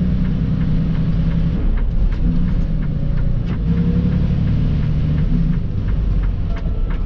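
Semi truck's diesel engine running with a steady low rumble and hum, with a few faint clicks over it.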